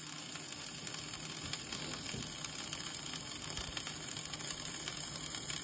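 Stick (arc) welding on an excavator's track frame: the arc crackles steadily with fine rapid ticks, over a low steady hum.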